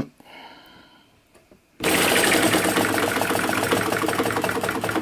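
Hu SH-02 flame-licker vacuum engine turning over fast, with a rapid, even mechanical clatter from its valve and linkage that starts suddenly about two seconds in.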